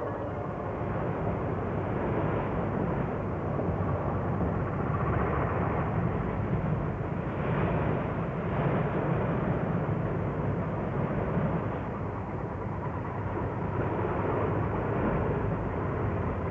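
Steady rumble and rush of a wooden fishing boat under way at sea, with water running along the hull. The sound swells and eases gently and has no clear tone or beat.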